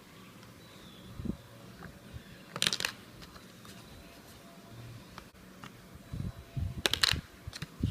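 A small coin clicking and rattling through the coin slot of a tiny homemade vending machine, in two short bursts of clatter about four seconds apart with light handling clicks between. The coin is a 5-cent piece, which the machine rejects, since it takes only 20-cent coins.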